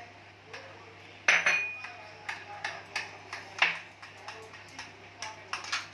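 A spoon knocking and clinking against a bowl while cream is spooned in, with a sharp ringing clink about a second in and another loud knock in the middle.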